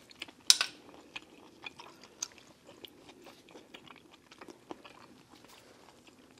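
Close-up eating sounds: chewing, with a sharp click about half a second in and many small scattered clicks as gloved hands handle and peel shellfish.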